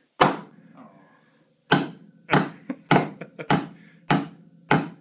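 Hammer driving a nail into wood framing: one blow, a pause, then six more blows in a steady rhythm, about one every 0.6 s. Each strike rings briefly.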